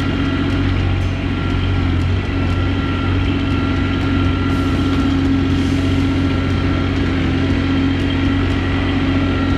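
Mahindra eMax 20S sub-compact tractor's diesel engine running steadily.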